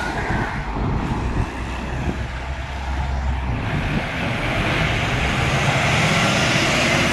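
Iveco heavy-haul tractor unit's diesel engine running as the lorry drives slowly past. It grows louder about four seconds in, when the cab comes close, with tyre and road noise.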